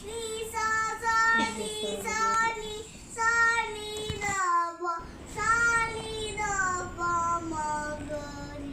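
A child singing a simple tune in long held notes that rise and fall in pitch, with a short break about halfway through.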